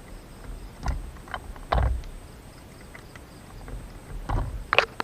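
Scattered light clicks and knocks of small screws and metal parts being handled as screws are fitted by hand into a steering wheel quick release hub; the loudest knock comes a little under two seconds in.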